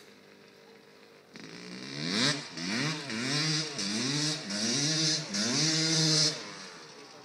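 Yamaha YZ250 two-stroke dirt bike engine, faint at first, then revving hard in about five rising and falling surges as the bike drifts across the dirt, fading away near the end.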